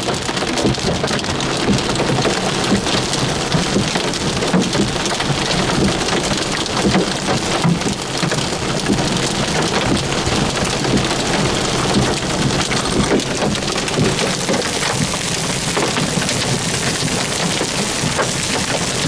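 Steady rain hitting a car's roof and windshield, a dense run of drop impacts at an even level.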